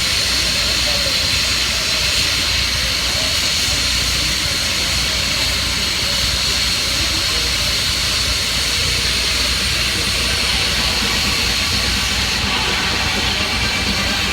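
Steam escaping from a steam engine in a steady, loud hiss that neither builds nor breaks off.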